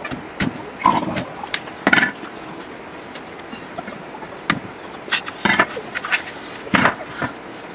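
Cleaver chopping palm fruits off their bunch on a wooden table: a run of sharp, uneven chops in the first two seconds, a pause, then another run of chops.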